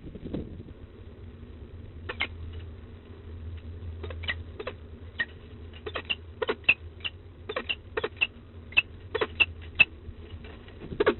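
Peregrine falcon feeding on prey on a metal grating ledge, its beak and feet making irregular sharp clicks and taps about two a second from about two seconds in, over a steady low hum from the webcam.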